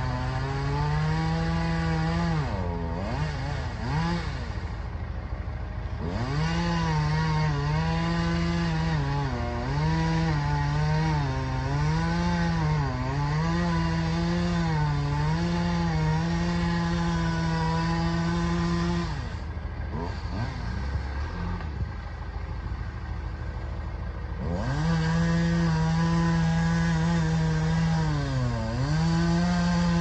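Two-stroke chainsaw cutting into the base of a large tree trunk at full throttle, its pitch dipping again and again as the chain loads up in the cut. Twice it drops to idle for a few seconds, a few seconds in and again about two-thirds of the way through, then revs back up.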